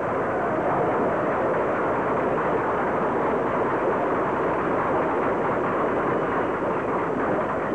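A large crowd applauding: many hands clapping at once in a loud, steady, even clatter.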